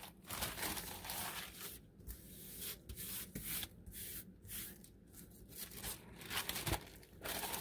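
Thin paper napkin rustling under the hands as it is smoothed and handled, in a series of short, soft rustles with brief pauses between them.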